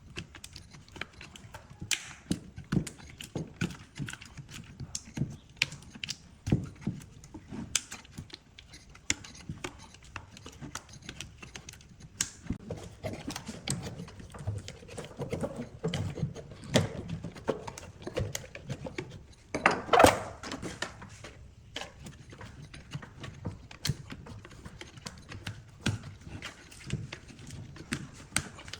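Irregular light taps, clicks and knocks of objects being handled, with one louder knock about two-thirds of the way through.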